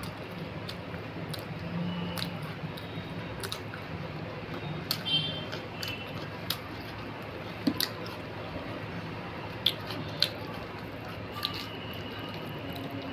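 Close-up eating sounds: a person chewing flatbread, with about ten short, sharp mouth clicks and smacks scattered through, and the soft sound of bread being torn and used to scoop food.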